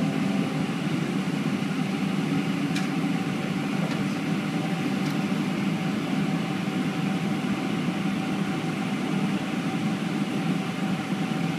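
Steady cabin hum inside a Boeing 777-200 with its engines running at idle and the air conditioning blowing, a faint steady tone over the low hum.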